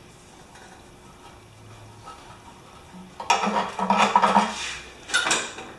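Clattering and scraping of hands working a shop-towel rag in and out of a small pressure-washer engine's fuel tank to soak up old gasoline. It comes in short, irregular bursts starting about three seconds in, after a quiet stretch.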